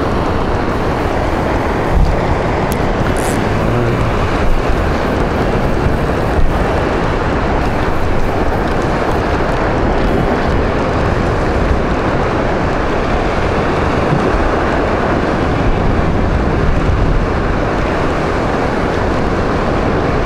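Steady wind rumbling on the microphone over the wash of sea surf against rocky cliffs, with a few brief bumps in the first seven seconds.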